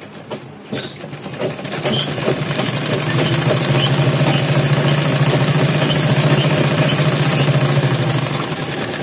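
Sewing machine stitching a seam, running a double line of stitches. It speeds up over the first couple of seconds, runs steadily at a fast even stitch rate with a low motor hum, then slows near the end.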